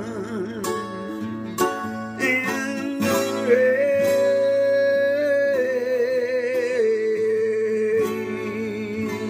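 Steel-string acoustic guitar strummed, with a man singing long held notes with vibrato over it. One high note is held for about two seconds near the middle, then the melody steps down.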